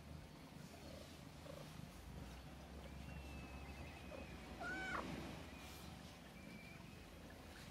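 Black cat purring quietly, a low steady rumble, as it is stroked and rubs against a person's legs. About five seconds in there is a brief rising-and-falling cry, the loudest sound.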